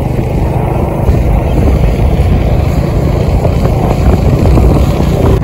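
Loud, steady rumble of wind and road noise picked up from a moving vehicle.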